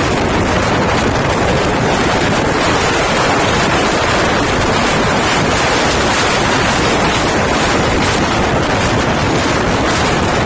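Loud, steady wind noise buffeting the microphone, with a vehicle's running rumble underneath.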